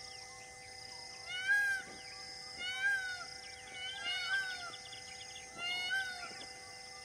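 An animal calling about five times in short mewing calls, each rising then falling in pitch, over a steady held background drone.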